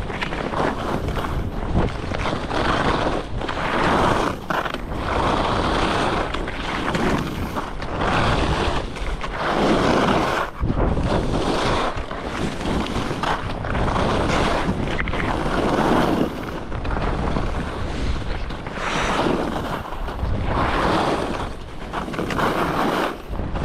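Wind rushing over an action camera's microphone while skiing downhill, with the skis scraping the snow. The noise swells about every two seconds as the skier carves turns.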